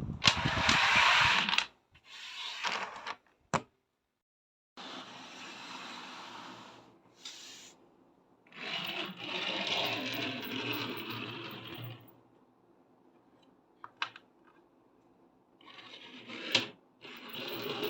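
A fan blowing in several bursts that start and stop abruptly, with domino blocks clattering as they are blown over and a few sharp single clicks in the pauses.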